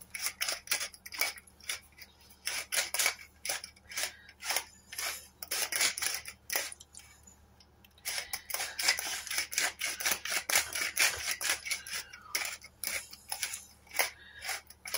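Wooden pepper mill being turned by hand, its grinder crunching peppercorns in quick runs of dry clicks, with a short pause about seven seconds in.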